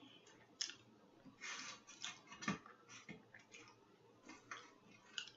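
Close-miked chewing and lip smacking of food: an irregular string of sharp wet clicks and short crackly bursts, the loudest click about halfway through.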